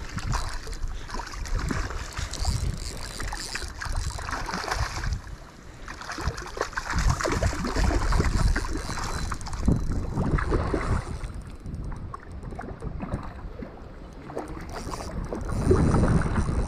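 Water sloshing and splashing in the shallows as a hooked trout is worked toward the net, with wind gusting on the microphone.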